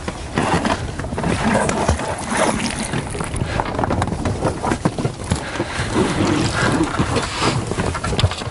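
Handling noise on an inflatable rubber boat as a stern anchor and its rope are lowered over the side, with water sloshing: a continuous jumble of rubbing, knocks and splashes.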